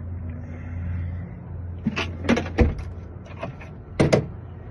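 Sharp metallic clicks and clacks of a locksmith handling lock and key parts, in two clusters about two seconds in and again near four seconds, over a low steady hum.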